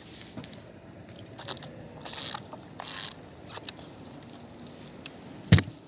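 Close handling noise with scattered small clicks and a couple of short breathy puffs, then one loud knock near the end, typical of a water bottle being drunk from and handled.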